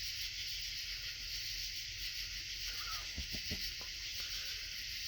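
Steady night insect chorus, a dense, even high-pitched hiss, with a few faint short sounds a little past halfway through.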